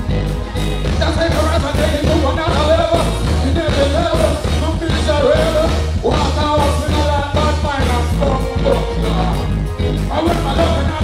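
Live band music over a concert PA with a heavy, pulsing bass line and drums. A male vocalist sings into a microphone over it from about a second in.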